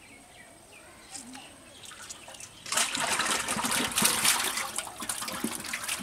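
Water splashing and sloshing, starting suddenly about three seconds in and continuing loudly with a dense crackle.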